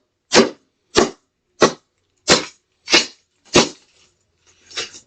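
A plastic Casdon toy Dyson vacuum cleaner being struck hard over and over, six sharp cracking blows about two-thirds of a second apart, then a weaker one near the end.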